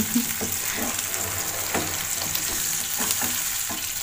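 Marinated Indian mackerel sizzling in shallow oil in a nonstick frying pan, with several short scrapes and taps of a metal spatula as the fish pieces are lifted and turned over.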